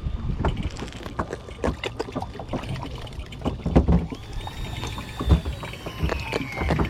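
On-board sound of a small fishing boat at sea: irregular knocks and water slaps against the hull with a low rumble throughout. About four seconds in, a faint whine starts and slowly falls in pitch.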